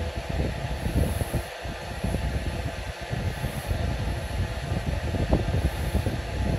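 Red tabby cat purring close up while its cheek and head are scratched: a low, pulsing rumble with a faint hiss returning every two seconds or so.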